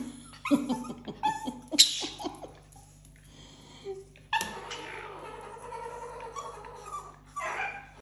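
Poodle whimpering and yipping: several short cries in the first two seconds, then one long drawn-out whine from about four and a half seconds in, and another short cry near the end.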